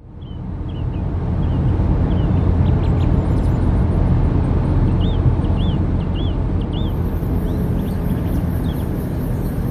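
Steady low rumble of a vehicle driving, with birds chirping over it, including a run of four quick rising-and-falling notes about five seconds in. About seven seconds in, a high, rapidly pulsing hiss joins.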